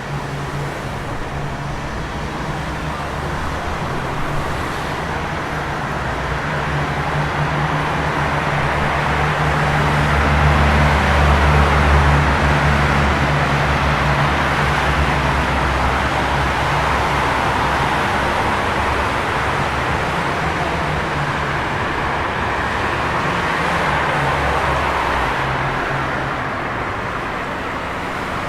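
Road traffic in a traffic jam: engines idling and running slowly, with a steady low engine hum that swells as a vehicle draws close about ten to thirteen seconds in, then eases away.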